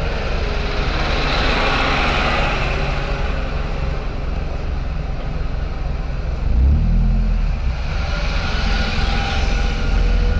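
A city bus's engine running close in front and then pulling past, heard from inside a car over a steady low engine hum. The low rumble grows louder about six and a half seconds in, and a broad hiss swells as the bus draws alongside near the end.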